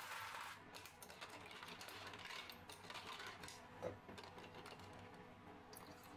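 Long metal spoon stirring iced coffee in a tall glass: faint, irregular clinks of the spoon and ice cubes against the glass, with one sharper clink about four seconds in.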